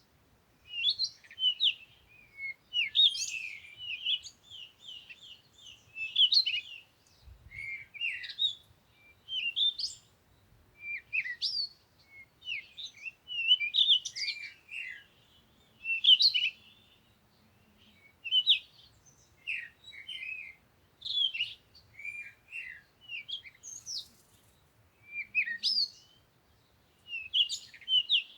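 Songbirds singing in short, quick chirping phrases that come every second or two, with brief pauses between them.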